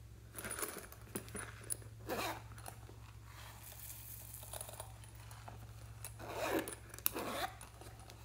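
Zipper on a strawberry-shaped zip pouch being pulled, several short rasping zip strokes with a few clicks and handling rustles, over a steady low hum.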